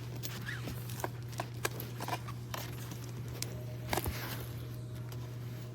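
Scattered light clicks, taps and brief rustles of small objects being handled, a cluster of taps about four seconds in, over a steady low electrical hum.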